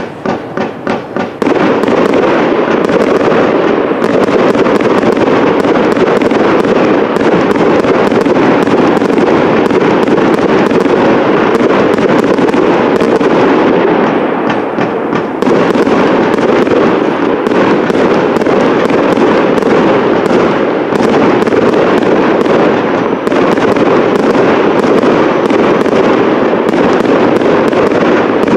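Fireworks display: a few quick pulsing bangs, then a dense, continuous barrage of overlapping bangs and crackles, easing briefly about halfway through before resuming.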